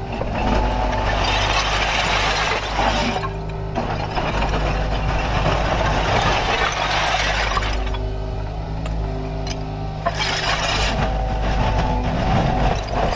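Kubota KX61-3 mini excavator's diesel engine running steadily, with three surges of hydraulic and working noise as the machine is operated.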